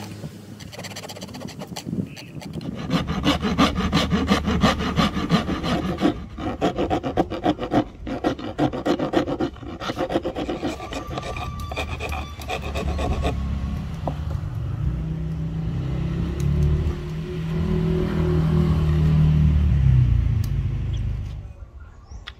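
A steel wood rasp scraping Siamese rosewood in quick back-and-forth strokes, shaping a walking stick and its handle. In the second half the rasping fades under a low engine hum that swells and then dies away near the end.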